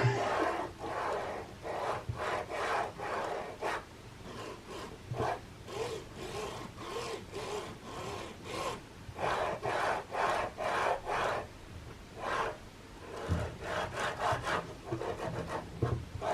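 HGR20 linear-rail carriage slid back and forth by hand along its steel rail, its recirculating balls giving a rough rasping rumble with each stroke, about one to two strokes a second; rough running that marks a carriage in poor condition.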